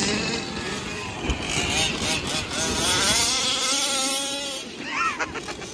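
Small two-stroke gas engine of a 1/5-scale RC off-road car revving hard, its pitch climbing and falling as the car accelerates and lets off.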